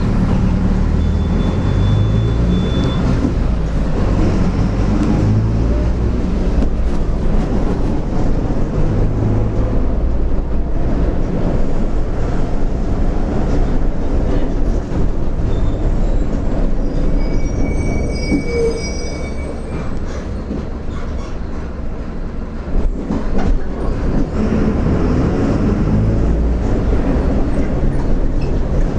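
Mercedes-Benz OF-1722M bus under way, its diesel engine and drivetrain rumbling, with a growling driveshaft (cardan). The engine note rises and falls with acceleration and gear changes, eases off a little past the middle, then pulls again.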